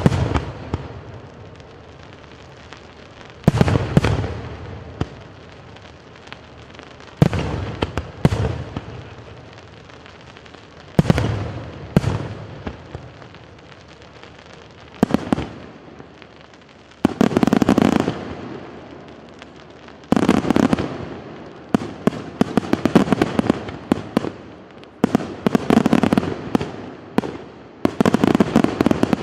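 Aerial firework shells bursting. At first there are single loud bangs every three to four seconds. From a little past halfway, longer volleys of bursts come, thick with rapid crackling pops.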